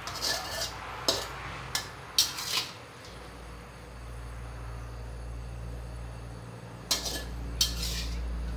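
Metal utensils scraping and clinking against a steel wok and a ceramic plate as a stir-fry is dished out: a run of short scrapes in the first three seconds, then two more clinks near the end.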